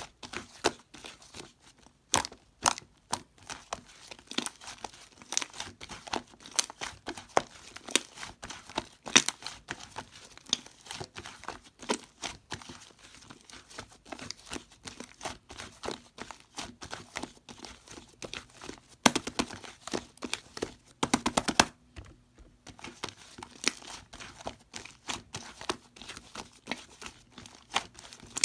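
White slime being squished and stretched by hand, giving an irregular run of sticky clicks and small pops, with two denser bursts of crackling about two-thirds of the way through.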